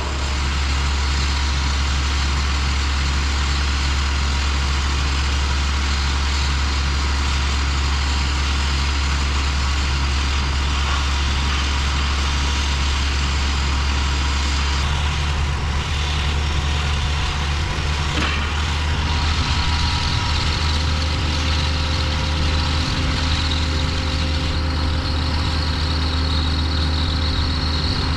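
Ford TW-20 tractor's six-cylinder diesel engine running steadily as a low drone, its note changing about halfway through.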